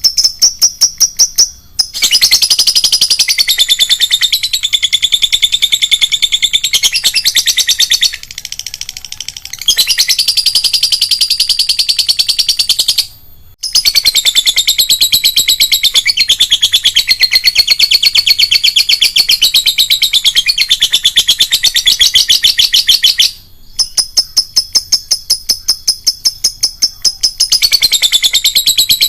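Lovebird giving its long 'ngekek' song: fast, shrill, chattering trills. They run on for many seconds at a time, broken by a few brief pauses, and there is a quieter stretch around eight to ten seconds in.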